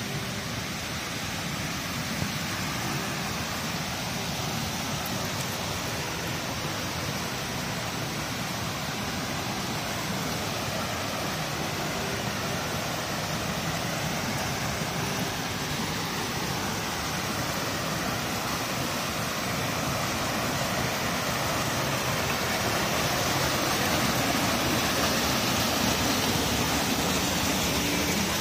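Steady rush of fast-flowing water, as of a mountain stream or waterfall, growing a little louder toward the end.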